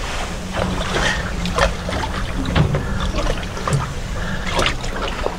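Water sloshing and lapping against a fishing boat's hull in short, irregular splashes, over a steady low rumble.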